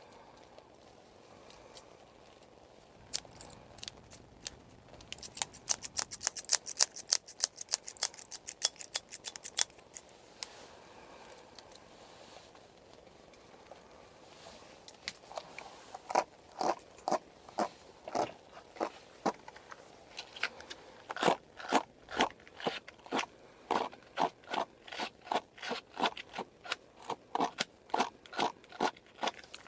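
Scissors snipping close to the microphone in runs of quick, sharp snips: a burst of snips in the first third, a pause of several seconds, then a steady rhythm of snips that carries on to the end.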